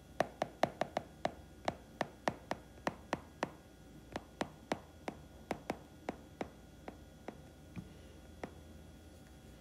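Stylus tapping on a tablet's glass screen during handwriting: a string of sharp, irregular clicks, about three a second, thinning out over the last couple of seconds.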